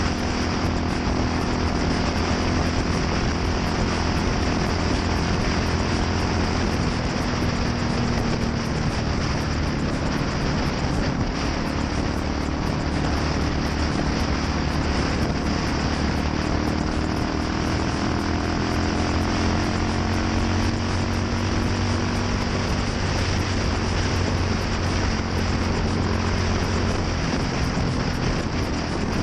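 Yamaha SR400's single-cylinder four-stroke engine running through a NitroHeads aftermarket muffler. It gives a steady exhaust note whose pitch drifts gently down and then up.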